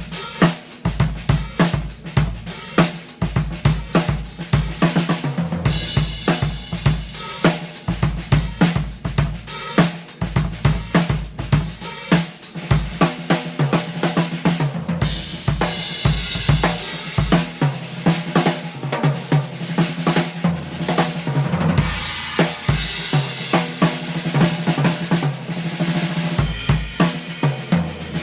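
A Gretsch Broadkaster drum kit being played continuously: bass drum, snare and toms with hi-hat and cymbals. The cymbal wash swells in several passages.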